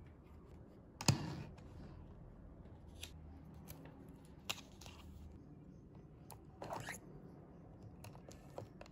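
Faint desk handling sounds: a sharp knock about a second in, then scattered light taps and clicks and a short rustle, with pens clicking in a pen holder near the end.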